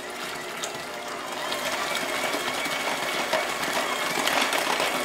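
KitchenAid electric hand mixer running steadily, its beaters working an egg into creamed butter and sugar in a glass bowl.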